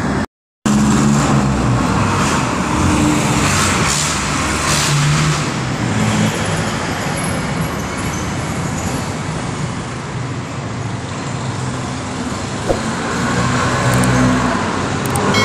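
Road traffic: the steady noise of passing vehicles, with engine hum swelling as vehicles go by and one short click near the end. The sound cuts out for a split second just after the start.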